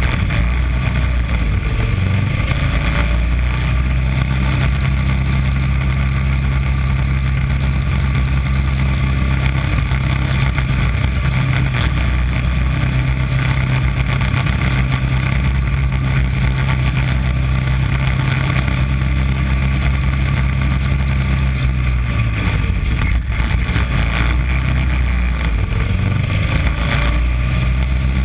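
The small engine of a mini Corvette race car running steadily at speed, heard from its hood. About three-quarters of the way through the steady engine note drops away for a few seconds, then picks up again.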